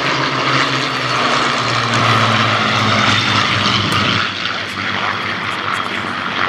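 Supermarine Spitfires' Rolls-Royce Merlin V12 piston engines and propellers droning steadily as the formation flies past, loudest in the first four seconds and easing a little after.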